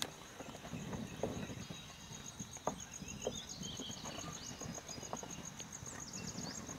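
Faint outdoor ambience from a kayak on open water: a low wash of water and wind with scattered small knocks, a steady, rapidly pulsing high-pitched trill, and a few short chirps.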